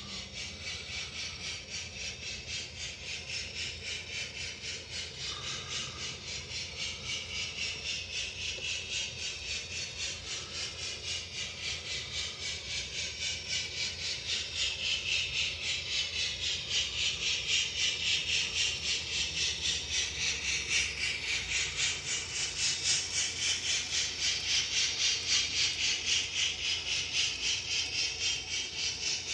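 Model railway locomotive with a DCC sound decoder running on its track: an even, rhythmic hissing pulse, several beats a second, growing louder about halfway through.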